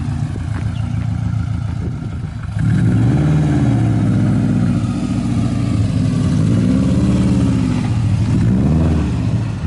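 Subaru WRX's turbocharged flat-four engine pulling up at low speed, quieter at first, then louder from about two and a half seconds in, with the revs rising and falling several times.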